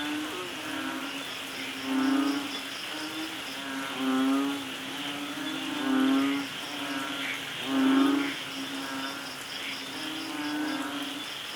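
Steady hiss of falling rain, with a low pitched animal call repeating about every two seconds, each call under a second long. A faint, fast, high pulsing chirp comes and goes behind it.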